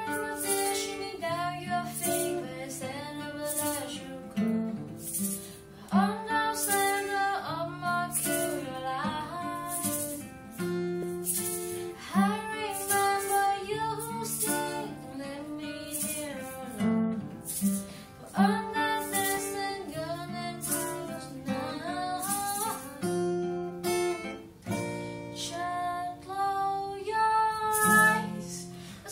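A song with a strummed acoustic guitar and a woman singing.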